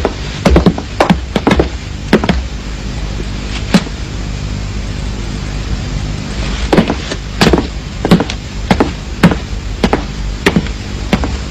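Footsteps of hard-soled shoes on a hard floor: sharp single steps about two a second, stopping for a few seconds midway and then going on, over a steady low hum.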